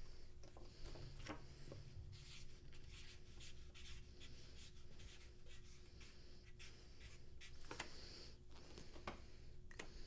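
Quick, light scratching and rustling of paper and a small cardboard box handled close by, over a faint steady hum.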